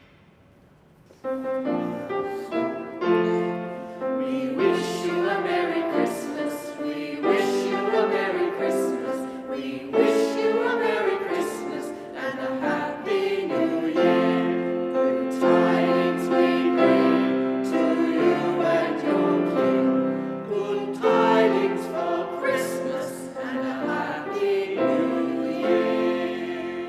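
Choir of choristers singing with piano accompaniment. The music begins about a second in and fades near the end.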